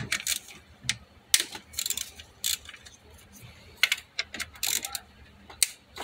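Irregular metallic clicks and clinks of a socket wrench set, as a 10 mm socket, an extension and a ratchet are fitted together and handled.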